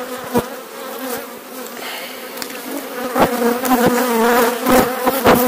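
Honeybees buzzing close up on a frame from an open hive: a steady hum that grows louder about three seconds in, broken by a few sharp knocks.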